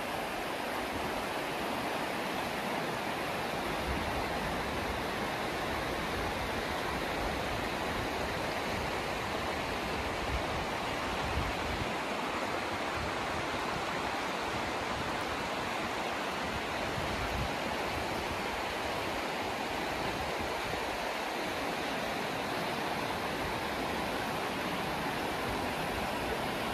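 Shallow river rapids rushing over a rocky bed, a steady, even rush of water.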